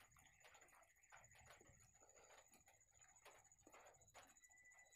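Near silence: faint room tone with a few very soft, barely audible clicks.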